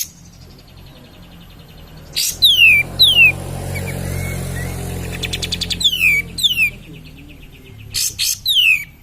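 Kapas tembak bulbul singing in full ('gacor') song: repeated sharp whistled notes that slide steeply down in pitch, mixed with fast rattling chatter.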